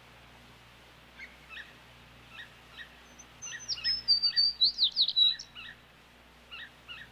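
Sparrow calls: scattered short chirps, then a louder, busy run of higher, rapid notes and sweeping trills in the middle, and a couple more chirps near the end.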